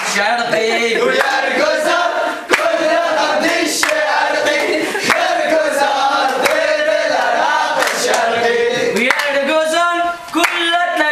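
A group of men singing together in unison, chant-like, with sharp hand claps every second or so. The singing dips briefly about ten seconds in, then picks up again.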